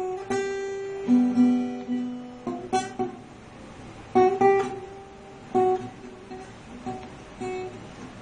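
Acoustic guitar played slowly: single notes and small chords plucked one at a time and left to ring out, thinning to a few sparse notes near the end.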